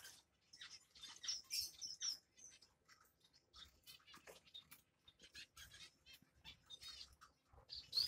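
Small caged finches chirping: many short, high calls scattered throughout, with a quick run of repeated notes about seven seconds in.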